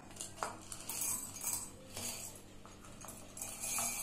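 Dry fusilli pasta poured from a small ceramic bowl into a ceramic mug, rattling and clinking in several bursts, loudest near the end.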